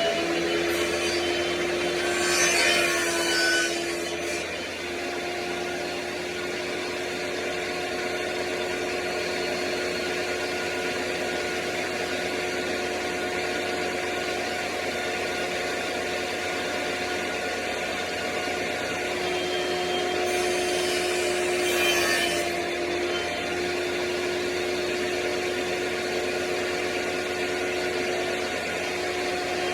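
Table saw running with a steady motor whine, its blade cutting through wood in two louder passes, about two seconds in and again about twenty-one seconds in.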